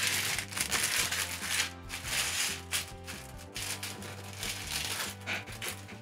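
Clear plastic bag around a model-kit sprue crinkling in irregular bursts as it is handled, over steady background music.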